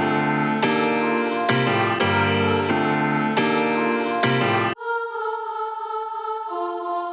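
Background music from an instrumental beat: held choir-like chords over a bass line, with the bass and low end cutting out suddenly about two-thirds of the way in, leaving only high sustained chords.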